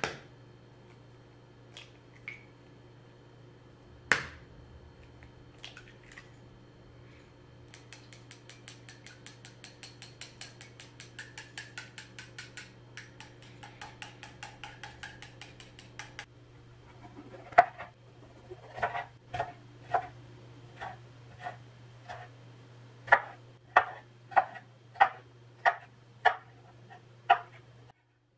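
An egg is knocked against a ceramic bowl about four seconds in. Then chopsticks beat the eggs in the bowl, a quick even clicking at about four strokes a second for some eight seconds. After that a kitchen knife chops yellow bell pepper on a wooden cutting board, a series of sharp knocks about a second or less apart, over a steady low hum.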